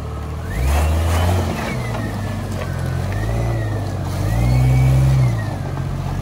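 Jeep Cherokee XJ engine revving up and easing off in several pushes as the Jeep crawls over rocks, with a higher whine rising and falling along with the revs.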